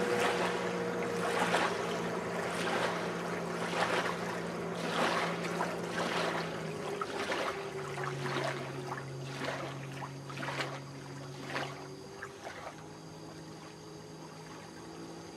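Personal watercraft (jet ski) engine running at speed, with the hull slapping on the chop and spray hissing in repeated splashes. The engine note drops in pitch about seven seconds in, and the sound fades as the craft moves away.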